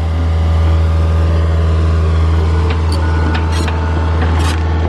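John Deere 50G compact excavator's diesel engine running steadily at working speed with a deep, loud drone while the boom and bucket move. A few light clicks or knocks come about three to four and a half seconds in.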